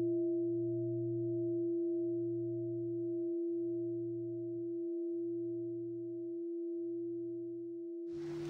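Bowl bell ringing out: one sustained tone that wavers slowly, about once every second and a half, as it gradually fades. Near the end a steady hiss of room sound comes in under the still-ringing tone.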